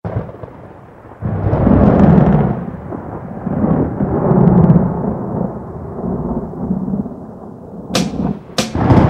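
Thunderstorm sound effect: rolling thunder rumbles in several swells, with a haze of rain, then two sharp cracks near the end.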